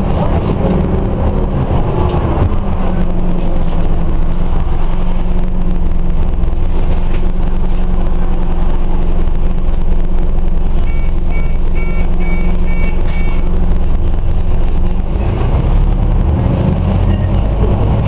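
Diesel engine of a Scania OmniCity single-deck bus heard from inside the passenger cabin: its note changes over the first couple of seconds, then holds steady, and about fifteen seconds in the revs rise again. Around eleven seconds in, a short run of about six electronic beeps sounds.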